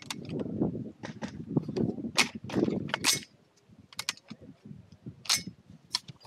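Scattered sharp gunshot cracks, about half a dozen spread over several seconds, with low scuffing underneath in the first half.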